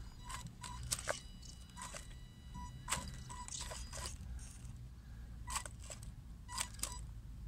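Tyres of a WLtoys 12428 RC crawler crunching and scraping over loose gravel and rock as it climbs a ledge, with small stones clicking at uneven intervals. A faint high whine from the little electric drive rises about a second in and fades a couple of seconds later.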